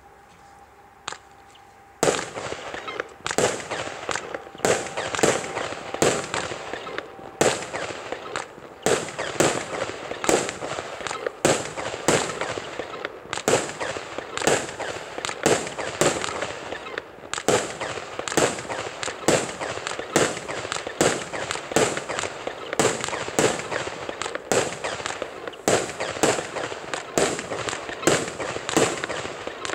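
Lesli Brutus firework battery firing. About two seconds in it starts, then goes on in a steady, unbroken run of sharp shots and bursts, each with a short crackling tail, a little under two a second.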